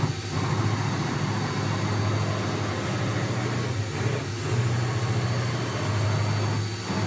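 Mazak M5N CNC lathe running under power: a loud low machine hum that shifts in pitch and level several times as the cross slide is traversed, over a steady faint high whine.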